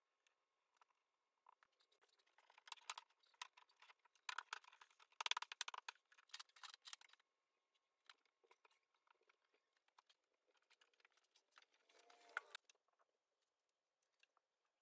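Faint handling noise from hands working on a painted shelf unit: scattered clicks and crackling rustles, densest in the first half. A short squeak comes a little later.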